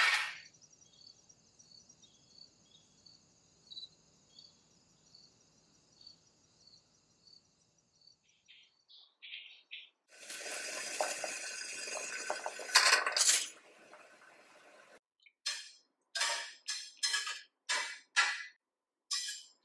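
A thin metal utensil clinking against the inside of an enamel pot in about eight quick, sharp strokes near the end. Before that comes a few seconds of steady rushing that sounds like water running, and at first only a faint high chirring.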